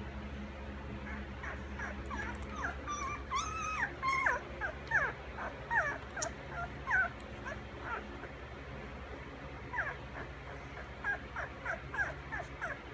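Week-old chocolate Labrador puppies squeaking and whimpering as they nurse: a string of short, high squeals, thickest from about three to seven seconds in and again near the end.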